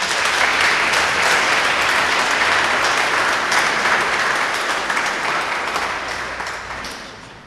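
An audience applauding steadily, the clapping dying away near the end.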